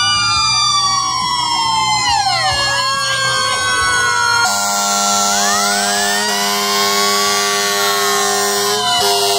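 Several fire engine sirens wailing at once, their pitches rising and falling over each other. About halfway through, a steady blaring tone comes in under the wails.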